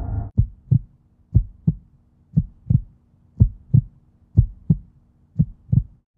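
Heartbeat sound effect: six slow double thumps, lub-dub, about one a second, over a faint steady hum.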